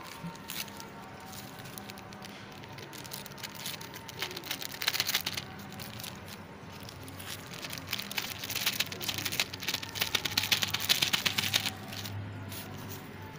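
Plastic crinkling and rustling as a zip-lock bag and a woven plastic sack are handled by hand. There are two spells of dense crackle: a short one about four to five and a half seconds in, and a longer one from about eight to eleven and a half seconds in.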